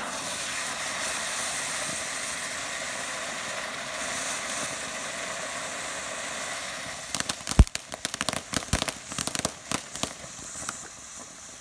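Ground fountain fireworks hissing steadily as they spray sparks, then about seven seconds in a quick run of sharp cracks and pops lasting about three seconds, the loudest near its start.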